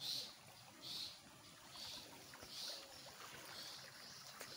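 Faint high chirps repeating about once a second: recorded swiftlet calls broadcast from the speakers of a swiftlet-farming house to lure the birds in.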